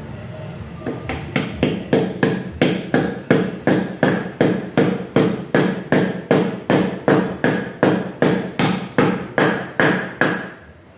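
Hammer striking metal in a steady run of about thirty blows, about three a second, each with a short metallic ring; the blows start about a second in and stop shortly before the end.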